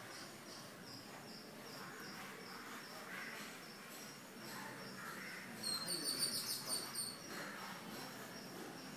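Faint high chirping in the background, then, about six seconds in, a louder run of rapid, high-pitched bird chirps lasting about a second and a half.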